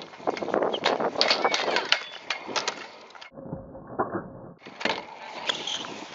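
Stunt scooter wheels rolling over concrete, with repeated sharp clacks and knocks from the deck and wheels on the ramps. Around the middle the sound briefly goes dull and muffled, with one knock in it, before the rolling returns more quietly.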